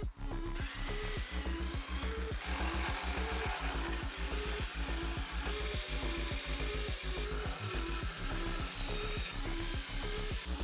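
Background music with a steady beat and bass line, an instrumental stretch of the song with no vocals.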